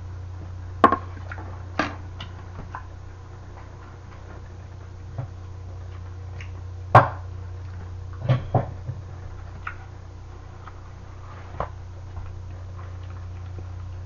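A few sharp clicks and knocks from chopsticks and a metal bowl being handled at a table, the loudest about seven seconds in, over a steady low hum.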